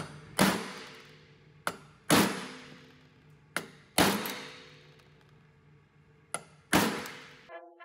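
Hammer blows on a socket used as a seal driver, tapping a new oil seal into a cast oil pump housing. There are four heavy strikes, three of them preceded by a lighter tap, and each heavy strike rings out metallically for a second or more. Brass music starts near the end.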